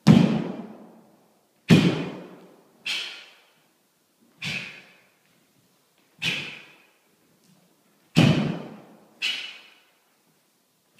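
Sharp snaps and thuds of a taekwondo form, one with each strike or block. There are seven of them at uneven intervals, each ringing out in the hall's echo for about a second.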